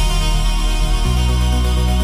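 Electronic dance music with a heavy sustained bass; the bass note changes about a second in.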